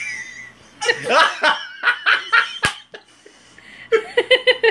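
People laughing in short bursts during an injection, ending in a quick run of 'ha-ha-ha' near the end, with a single sharp click about halfway through.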